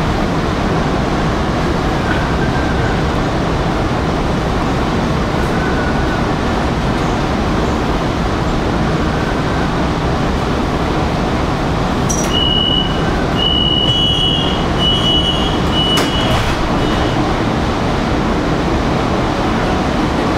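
Metro car doors closing at a station stop: a run of high, evenly pitched warning beeps lasting about four seconds, then the sliding doors shut with a sharp knock. A steady hum of the stationary train runs underneath.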